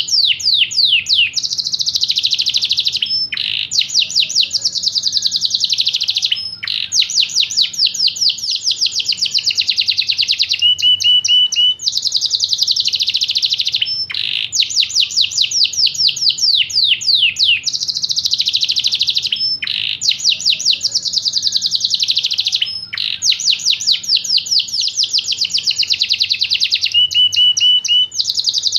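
Yorkshire canary singing a long, continuous song of very rapid trills, phrase after phrase with only brief breaks every few seconds.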